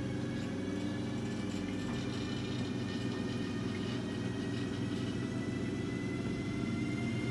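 Siemens Vectron locomotive's auxiliary last-mile diesel engine running steadily as the locomotive shunts slowly, a low engine drone with a thin high whine that rises slightly in pitch.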